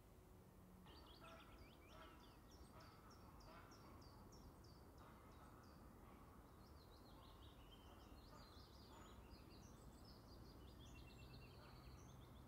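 Faint songbird singing: a run of short, high, down-slurred notes about three a second from about a second in, then a faster, more varied twittering phrase from about halfway, over a low steady background rumble.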